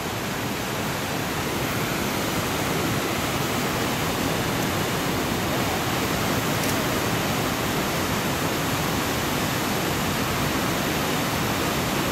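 Steady rush of a broad, low river waterfall and the white-water rapids below it.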